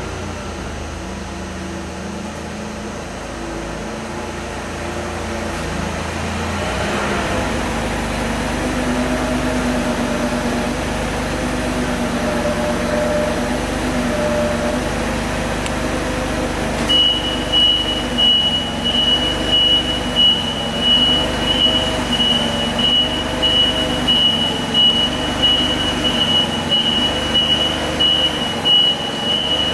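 A motor running steadily. About halfway through, a high-pitched beeping joins it, pulsing roughly once a second, like a warning beeper.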